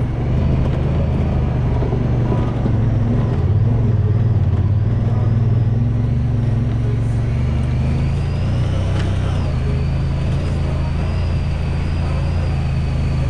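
Honda Pioneer 1000-5 side-by-side driving, its engine running steadily with small changes in pitch and a faint high whine that rises and falls.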